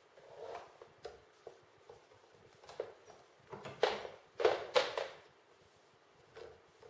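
Handling noise of a microphone cable being pulled through plastic cable clips on a mic stand's leg: scattered rustles and light clicks, the loudest few about four to five seconds in.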